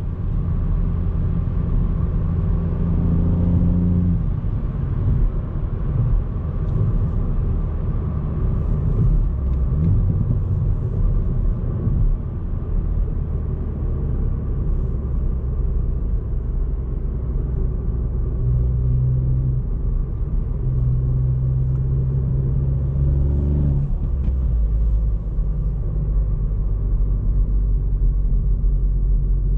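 Ford Fiesta ST Mk8's turbocharged 1.5-litre three-cylinder engine running at low revs with a deep rumble and road noise during an easy cruise. Its note drops about four seconds in and changes again about six seconds before the end, as with a gear change or lifting off the throttle.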